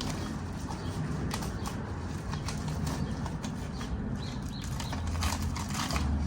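Small fingerboard park pieces being handled and unpacked: scattered rustling of packaging and light clicks and knocks as pieces are set down, over a steady low hum.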